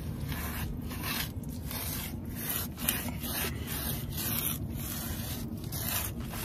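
A cloth rag scrubbing back and forth on rough concrete, about two strokes a second, wiping up spilled motor oil.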